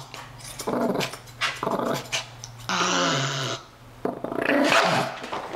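Pekingese dog growling: a low, drawn-out growl that breaks into a harsh snarl about three seconds in. It is the angry growl of an aggressive dog resisting being groomed.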